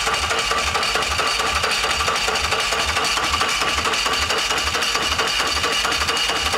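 Electric starter cranking a 113 cubic inch V-twin motorcycle engine with its plug wires off, so it never fires. A steady starter whine rides over an even, rhythmic chugging of the compression strokes. This is two minutes of nonstop cranking, and the starter is overheating and smoking.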